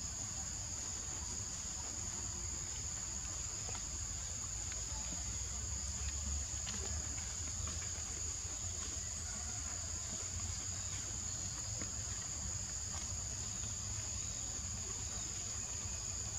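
Steady insect chorus: a continuous high-pitched drone that holds unbroken throughout, over a low rumble.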